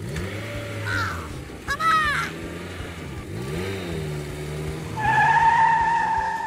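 Cartoon vehicle sound effects: a motor engine running and revving, its pitch rising and falling, with a brief squeal about two seconds in and a steady high-pitched tone from about five seconds in until just before the end.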